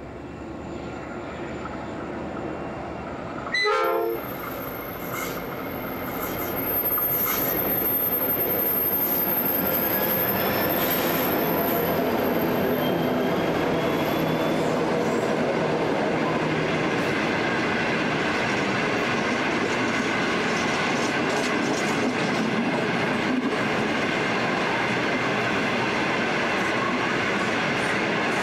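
Freight train hauled by two 81 class diesel-electric locomotives, with EMD 16-cylinder two-stroke engines, approaching and growing louder, with one short horn blast about four seconds in. The locomotives then pass close by, followed by empty grain hoppers rolling past, a steady loud wheel-on-rail noise with a thin high whine in the first half.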